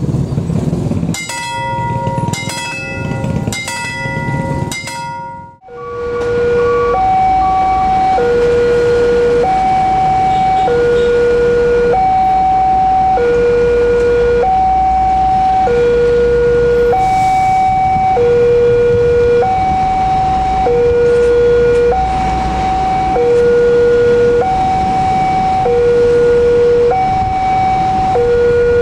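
An old mechanical railway crossing gong bell struck over and over, each stroke ringing on. About five seconds in it gives way to a level crossing's electronic warning alarm, a steady two-tone signal that alternates low and high, each tone lasting a little over a second, warning that the barrier is down for an approaching train.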